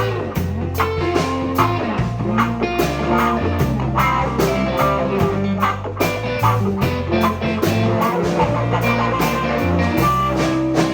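Band playing an instrumental break in a blues-rock song: electric guitar over a walking bass line and a steady drum beat.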